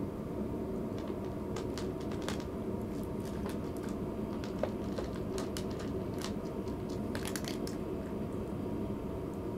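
A cat crunching food from a bowl: a run of small sharp crunches, scattered at first and bunched together near the end, over a steady low hum.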